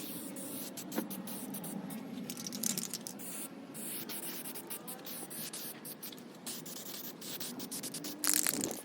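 Aerosol spray can of plastic primer hissing in short, uneven bursts as coats are laid onto a plastic bumper lip, with a louder spray burst near the end.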